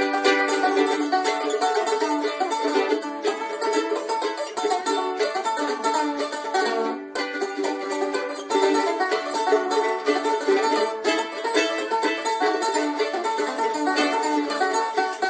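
A mandolin and a small banjo picking a tune together, with a momentary break about seven seconds in.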